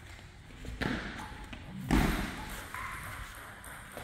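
Table tennis play: a sharp ping-pong ball hit, then a louder, deeper thud about a second later.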